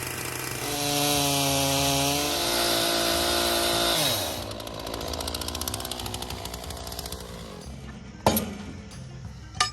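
Two-stroke chainsaw idling, then revved to high speed for about three seconds before it falls back to a lower idle. Two sharp knocks come near the end.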